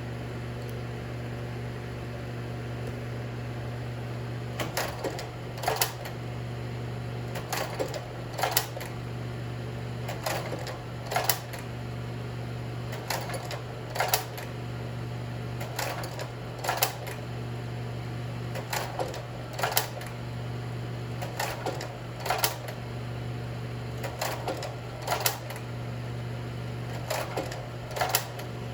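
Ansco Regent slide projector running, its cooling blower giving a steady low hum, while the slide-change mechanism clacks in pairs of clicks about a second apart, repeating every three seconds or so as slides are advanced.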